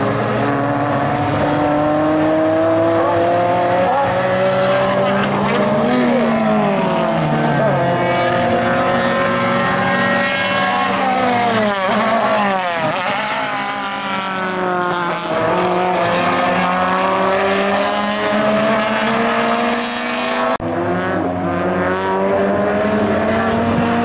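Time attack race car engines running hard on track, their pitch repeatedly climbing under acceleration and dropping through gear changes and braking, with more than one car heard at once. A sudden short break comes about twenty seconds in, after which the engines carry on.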